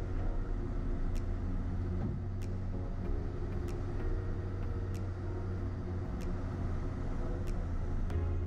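Ford F-150 pickup driving slowly over a snow-covered dirt road: a steady low engine and drivetrain rumble, with a faint high tick about every second and a quarter.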